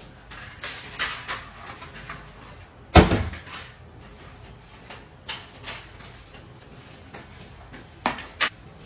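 Kitchen cupboard doors opening and closing: a scattered string of sharp knocks and clunks, the loudest about three seconds in.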